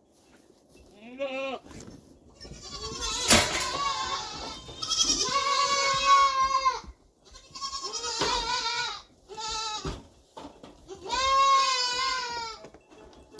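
Goat bleating, a series of about six long, loud calls, with a sharp click about three seconds in.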